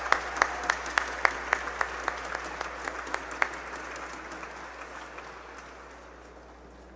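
Audience applauding, with sharp claps from one nearby clapper about three times a second standing out above the crowd. The applause thins out and dies away over the last few seconds.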